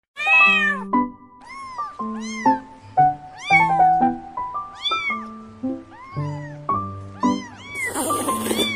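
A kitten meowing again and again, about once a second, over a background music track. A short rushing noise comes near the end.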